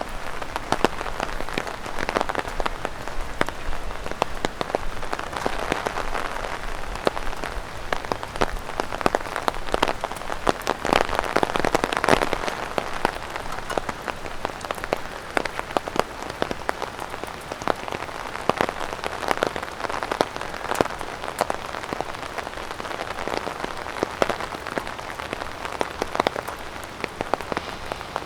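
Rain and drops falling from tree leaves pattering on an umbrella overhead: a dense, irregular tapping over a steady rain hiss.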